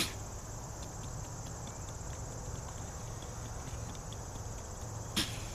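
A deer sneezing twice, two short sharp blows about five seconds apart, which the uploader puts down to bugs up its nose. A steady high chorus of insects runs behind.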